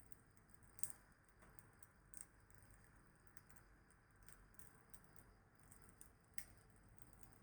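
Wood fire crackling faintly, with scattered sharp pops and snaps, the loudest about a second in, another near two seconds and one past six seconds.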